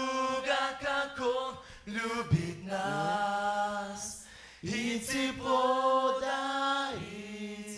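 A mixed group of young men and women singing a cappella into microphones, voices in harmony holding long chords with a short break about four seconds in; the last chord is quieter and trails off near the end.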